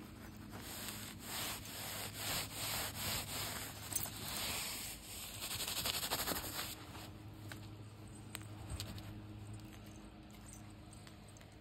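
Scratchy rubbing and rustling of Persian kittens' paws scuffing across a quilted puppy training pad. It comes as a run of short scuffs over the first several seconds, then fades to a few faint clicks.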